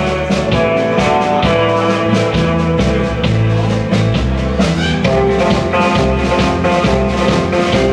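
Sixties-style rock band playing instrumentally, with bass, drums and guitar keeping a steady beat.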